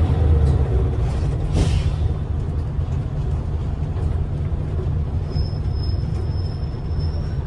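Isuzu Erga city bus's V8 diesel engine running with a steady low rumble, heard from inside the passenger cabin as the bus drives, with road noise. There is a short hiss about a second and a half in, and a faint high steady whistle joins past the halfway point.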